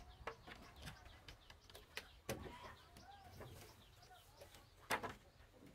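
Birds chirping, with a few sharp knocks of timber being handled on a wooden frame; the loudest knock comes about five seconds in.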